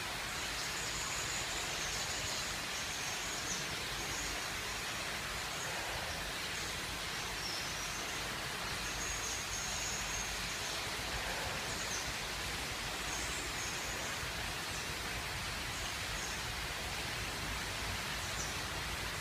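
Steady even background hiss with short, faint high-pitched chirps scattered through it.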